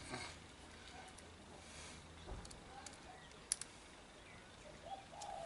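Faint clicks and light metallic rattling of a key being tried and jiggled in a bike lock that it does not fit, so the lock stays shut.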